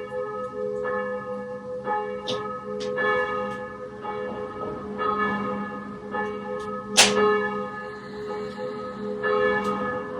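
Church bells ringing, several bells struck one after another in an irregular sequence, each strike ringing on so that the tones overlap into a continuous hum. One strike about seven seconds in is louder than the rest.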